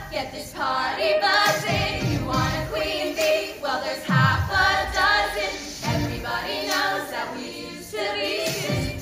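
Several young female voices singing a pop song together through handheld microphones over recorded backing music, with deep falling bass hits under the singing.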